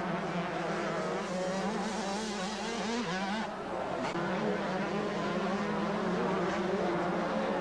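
Several 125cc liquid-cooled two-stroke motocross bikes racing, their engine notes wavering up and down as the throttles open and close.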